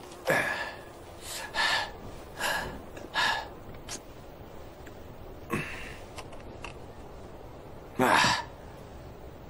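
A person's short, breathy gasps, about six of them at uneven intervals, the loudest near the end.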